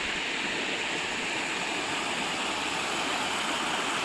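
Shallow river running over a rocky bed and small cascades: a steady, even rush of water.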